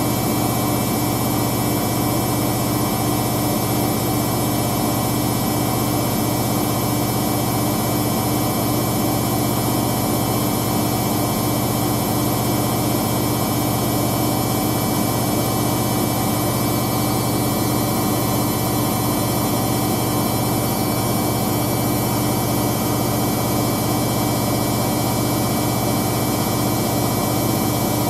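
Hoover DYN9144D3X washing machine in its final high-speed spin with a load of towels: a steady motor whine and drum rush that holds an even pitch and level.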